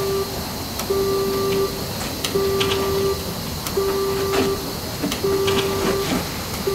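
A steady electronic beep repeating about every second and a half, each beep close to a second long, with short clicks and hisses between the beeps.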